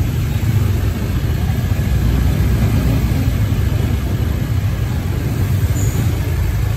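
Slow street traffic: the steady low rumble of a dump truck's engine mixed with the engines of motorcycles running close by.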